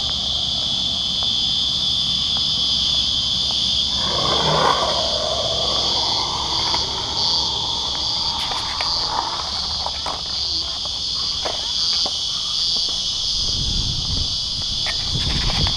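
A steady, high chorus of cicadas, pulsing about twice a second, over a low rumble that grows stronger near the end.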